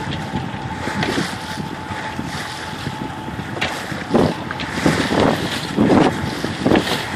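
Wind buffeting the microphone over the steady drone of a small sailboat's outboard motor pushing it along, with water rushing past the stern. From about four seconds in, the wind comes in stronger, irregular gusts.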